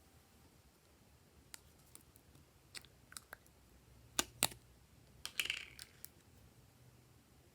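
Glossy slime being handled, giving a scattering of small sticky clicks and pops, with two sharper pops about four seconds in and a short crackly squelch just after.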